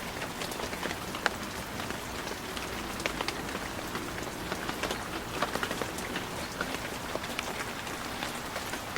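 Steady rain falling, many separate drop hits sounding over an even hiss.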